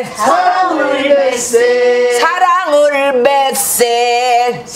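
Voices singing a line of a Korean Namdo folk song (minyo) together, with long held notes and wide, wavering vibrato.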